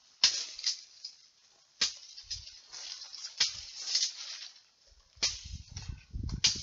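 Rustling of brush and bamboo stems with sharp snaps and clicks about every second and a half as someone pushes through a dense thicket. Muffled low rumbles of jostling on the microphone come near the end.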